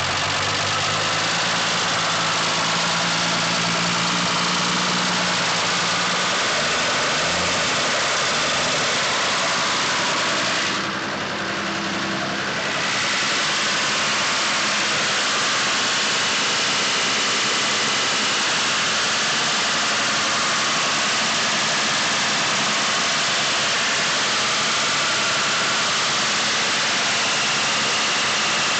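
An engine running steadily at idle, with a brief drop in level about ten seconds in.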